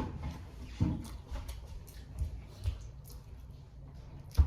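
Faint rustling and a few soft knocks, with one heavier, sharp low thump near the end.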